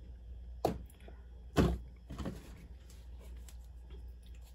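Two sharp knocks about a second apart, the second the louder, then a softer knock and a few faint taps: a can of Crisco vegetable shortening being picked up off the kitchen counter and handled.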